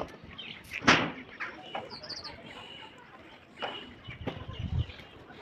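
Birds chirping over open-air background noise, with one sharp knock about a second in and a few fainter knocks.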